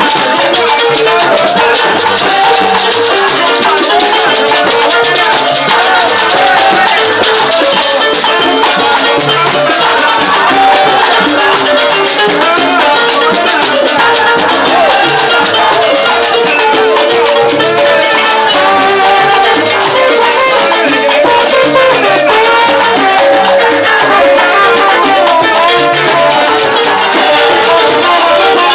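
Live salsa band playing loudly and without a break, with maracas shaking throughout over timbales, trombones and keyboard.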